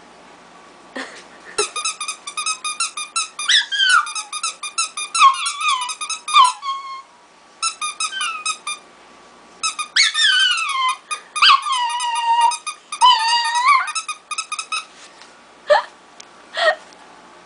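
A pet animal making runs of rapid, high-pitched squeaks, some of them sliding down in pitch, in several spells with short pauses between.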